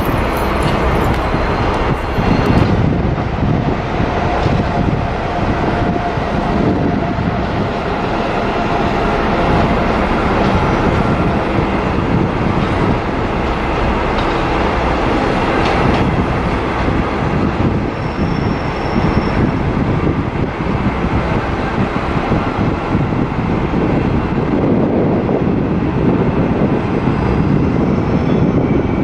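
A train running on the rails with steady, unbroken running noise.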